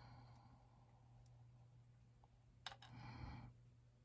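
Near silence over a steady low hum, with one sharp little metal click over two and a half seconds in as jewellery pliers close a jump ring on a charm.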